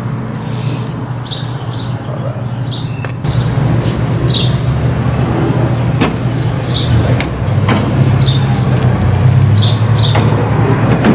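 A motor vehicle engine running steadily, louder from about three seconds in, with birds chirping over it.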